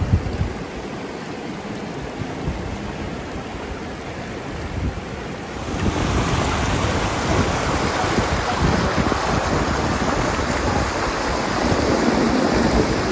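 Shallow mountain river rushing over rocks and small rapids, a steady wash of water noise with some wind rumble on the microphone. It gets louder and brighter about halfway through, as the rapids come closer.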